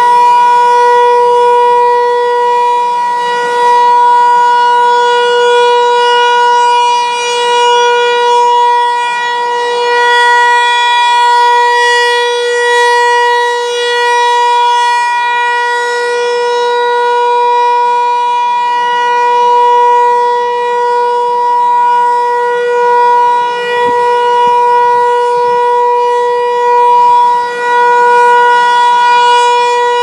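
Federal Signal 508 outdoor warning siren sounding the alert signal: one steady, unwavering tone that swells and fades every few seconds as the siren head rotates.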